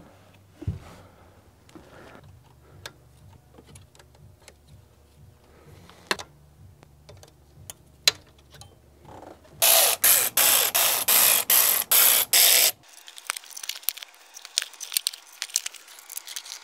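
Socket ratchet wrench clicking as the intake manifold bolts are loosened, with scattered clinks of the tool and bolts. In the middle comes a loud run of rapid ratchet strokes, about three a second, lasting about three seconds.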